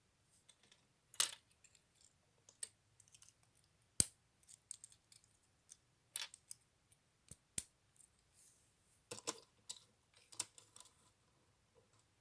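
Small plastic LEGO pieces being handled and pressed together: scattered clicks and light rattling, with one sharp click about four seconds in.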